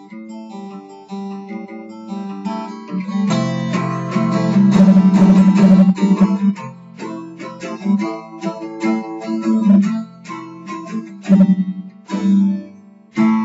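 Solo acoustic guitar played without voice: single picked notes, then full strummed chords that are loudest from about three to six seconds in, then picked notes and short strums again, ending on a struck chord.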